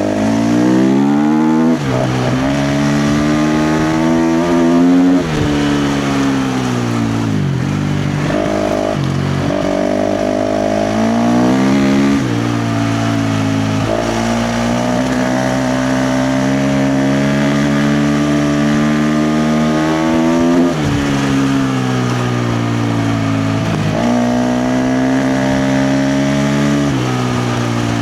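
KTM 350 XC-F dirt bike's single-cylinder four-stroke engine under hard throttle, its pitch climbing and then dropping sharply over and over as the throttle is opened and chopped and the gears change.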